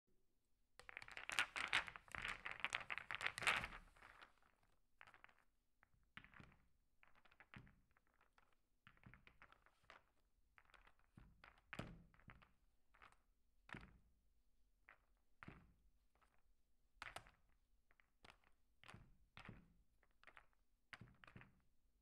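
Billiard balls clattering together for about three seconds as they are gathered and set up on the table. Then a string of separate sharp clicks and knocks, a second or so apart, as cue and balls strike and collide in play.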